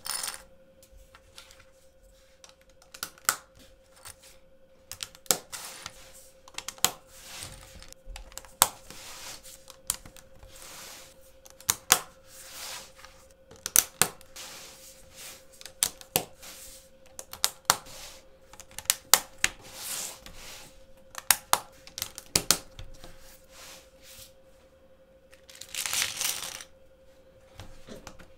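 LEGO plates clicking and clattering at irregular intervals as a hinged plate build is folded and rearranged by hand, with a few short scraping slides. A faint steady hum runs underneath.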